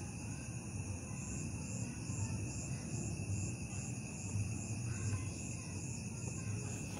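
Night insects calling, most likely crickets: a high chirp repeats a little over twice a second over steady high trills. A low rumble runs underneath.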